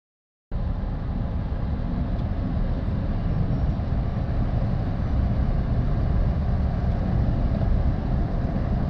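Steady low rumble of tyre and wind noise inside the cabin of a Smart Electric Drive car accelerating through about 100 to 120 km/h, cutting in abruptly about half a second in.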